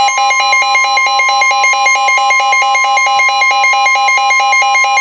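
NOAA Weather Radio warning alarm tone, a steady single pitch at about 1050 Hz, sounding together with a rapid two-tone electronic warble from the weather radio receiver that switches up and down several times a second. It is the attention signal that a warning is about to be read.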